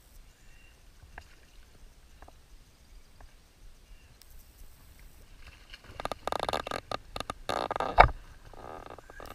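A few faint clicks, then about six seconds in a burst of splashing and rustling as a rainbow trout takes the dry fly at the surface and is hooked, with a sharp knock about eight seconds in.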